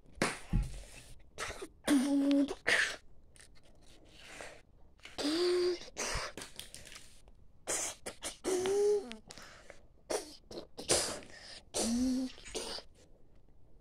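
A child making dinosaur noises with the mouth to voice toy dinosaurs fighting: four short pitched roaring cries, about three seconds apart, with breathy hissing and growling bursts between them.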